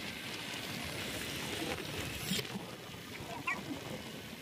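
Steady rush of wind across the microphone of a moving two-wheeler, with a low road rumble underneath. It fades slightly toward the end.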